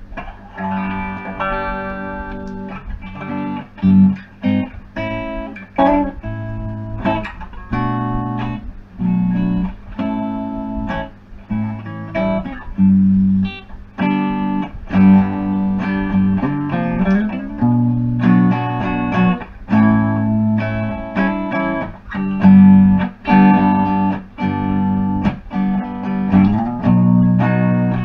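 Electric guitar played through a Big White Monkey Mark 1 "Chimp" hand-wired 5-watt Class A valve amplifier head (two EL84 and three ECC83 tubes), sounding a run of chords and notes that ring out with short breaks between them.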